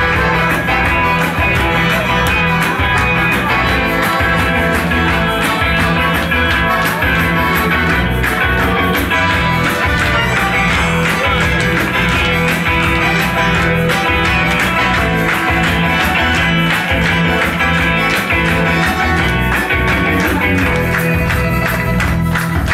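Live rock band playing loud, electric guitar to the fore over a steady beat.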